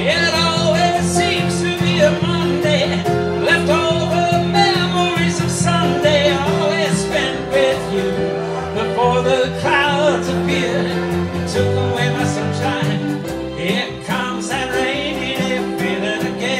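Acoustic guitar and electric keyboard playing a country-style song live, with a wavering lead melody over steady chords and bass notes that change every couple of seconds.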